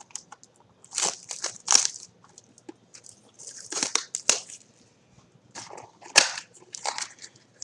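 Hands handling a cardboard mini box of trading-card packs and the foil-wrapped packs inside it, rustling in irregular short bursts, with a sharp snap about six seconds in.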